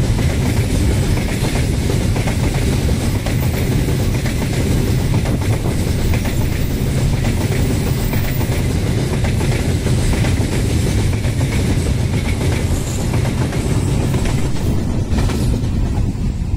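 Coal train of steel open-top gondola wagons rolling past on a curved track: a steady, loud run of steel wheels on the rails. The sound thins out near the end as the last wagons go by.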